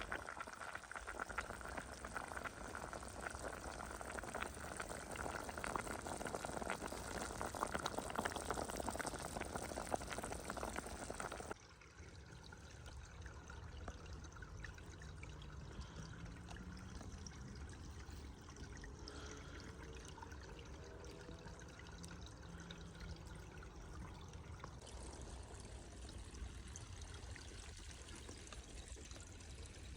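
Water sounds: a dense, fairly loud liquid hiss that cuts off suddenly about eleven seconds in, followed by quieter running water.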